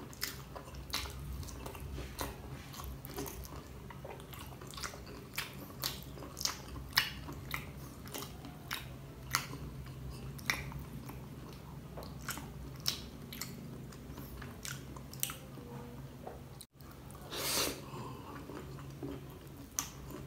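Close-up chewing and biting of sauce-coated dynamite shrimp, with frequent short wet mouth clicks and smacks over a low steady hum. A brief dropout comes a few seconds before the end, followed by a short louder rush of noise.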